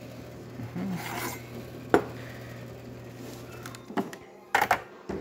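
Espresso machine pump humming steadily and stopping about four seconds in, as the shot ends. A sharp click about two seconds in and a few clatters and knocks near the end.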